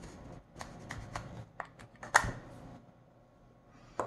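LED bulb's plastic diffuser dome being twisted off its housing: a run of short plastic clicks and scrapes, the loudest a little over two seconds in, then a single click near the end.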